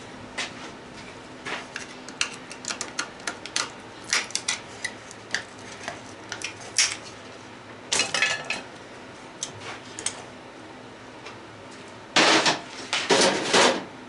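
Small metal parts and a screwdriver clinking and tapping on a metal-topped workbench as garbage disposal parts are worked apart, in quick irregular clicks, with a louder rattling clatter near the end.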